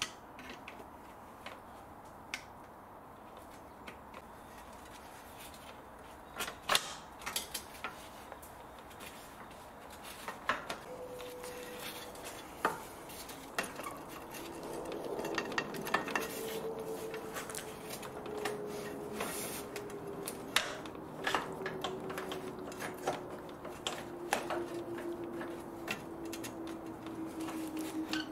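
Clicks, knocks and light metallic clatter as an aluminium aircon condenser is worked free of its clips and handled, sparse at first and busier from about six seconds in. From about ten seconds in, a faint steady hum slowly falls in pitch underneath.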